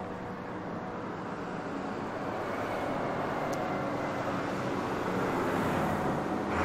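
A large truck passing close by on a street, its engine and tyre noise building steadily, loudest in the second half.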